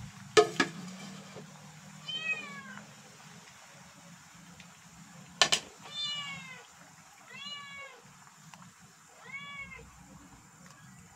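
A domestic cat meowing four times, each meow rising then falling in pitch. A couple of sharp knocks come near the start and again about halfway through.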